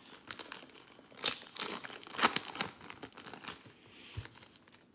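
Foil wrapper of a basketball trading-card pack crinkling and tearing as it is ripped open by hand and the cards are slid out: a run of sharp crackles, loudest about one and two seconds in.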